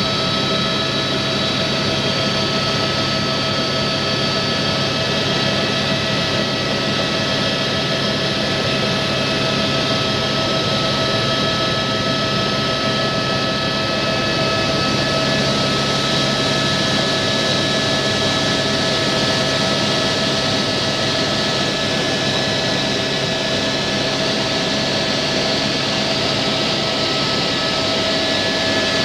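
Helicopter in flight, heard from inside the cabin: a steady high whine with several held tones over a low engine and rotor drone, unchanging throughout.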